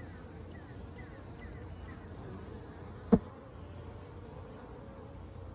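Honey bees buzzing steadily as a swarm around their colony, with a single sharp click about three seconds in.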